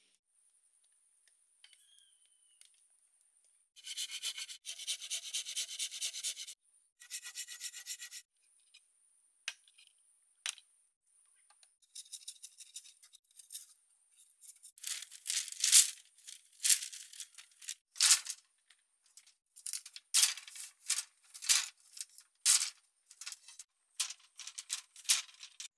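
Rubbing and scraping strokes, first in quick rasping runs, then as louder separate strokes in the second half, over a faint steady high-pitched whine.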